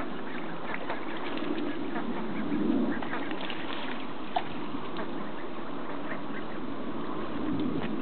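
Domestic ducks splashing in a pond, with steady water noise, scattered small splashes and quacking. A single short, sharp sound stands out a little past halfway.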